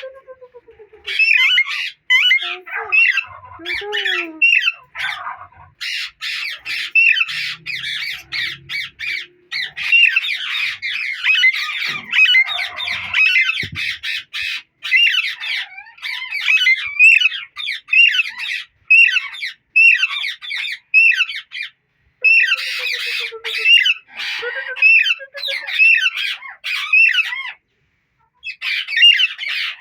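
Alexandrine parakeets calling in long runs of harsh squawks, several a second, with a few short pauses.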